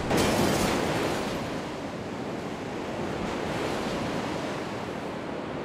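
Stormy sea waves: a surge of surf right at the start, then a steady rushing wash that slowly eases off.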